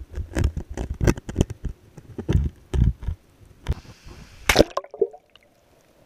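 Stream water heard through a camera held just under the surface: irregular sloshing, bubbling and knocks against the camera. About five seconds in it drops to a faint, steady underwater hush.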